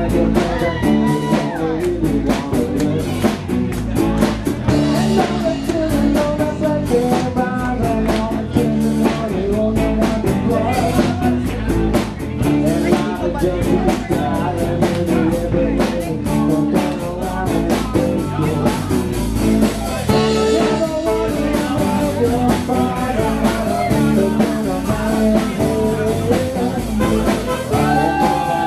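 A live rock band playing a song with electric guitars, bass and a drum kit keeping a steady beat.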